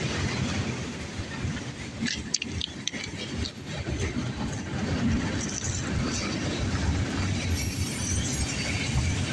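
Freight train rolling past close by: a steady rumble of steel wheels on rail, with a cluster of sharp clicks about two to three seconds in.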